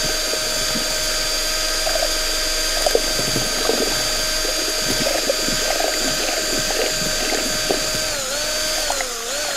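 Handheld drill fitted with a mixing paddle, running steadily while it stirs water-based paint in a bucket, with the paint swishing underneath. Near the end the drill's whine dips and wavers in pitch several times as its speed changes.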